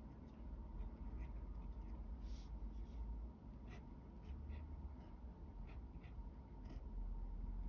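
A pen tip scratching on paper in a series of short, irregular strokes as Chinese characters are handwritten, over a low steady hum.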